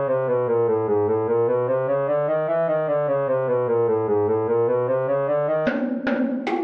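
BeepBox chiptune synthesizer tone whose pitch steps down and back up in small quick steps, twice over, like a stepped siren. Near the end it gives way to short percussive synth hits, about two or three a second.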